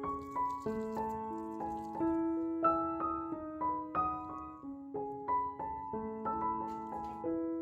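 Background piano music: a slow melody of single notes over lower held notes.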